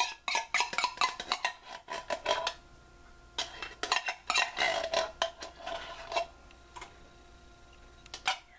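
Rapid clinks and scrapes of metal on metal as a can of condensed cream of chicken soup is emptied into a stainless steel mixing bowl, in two spells of a few seconds each.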